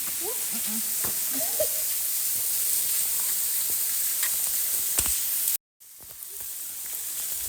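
Steady hiss of a waterfall's falling water, with faint distant voices in the first couple of seconds. The sound cuts out completely for a moment near the end, then fades back in.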